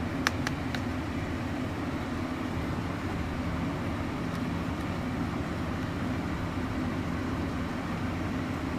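Battery-powered toy bullet train's small electric motor and gears running with a steady hum. There are three sharp clicks within the first second.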